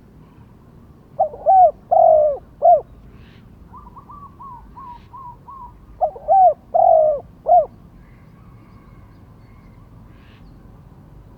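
Spotted dove cooing: two loud phrases of four arched coos, one about a second in and another about six seconds in. Between them comes a quicker run of about seven softer, higher-pitched notes from another bird.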